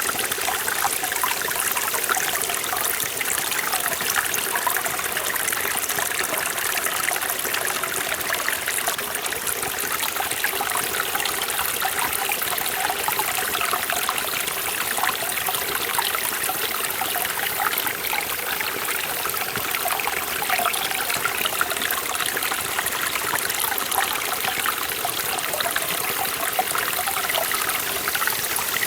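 Forest valley stream flowing steadily over rocks, a continuous splashing and trickling rush of water.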